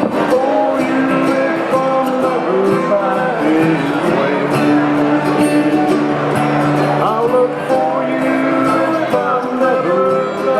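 Male voices singing a slow folk song live over strummed acoustic guitars, with long held notes.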